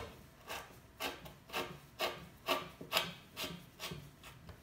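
A threaded plastic drywall anchor being screwed into drywall with a hand screwdriver: a rhythmic scraping and grinding of the threads cutting into the gypsum, about two strokes a second with each turn, growing fainter near the end as the anchor seats flush.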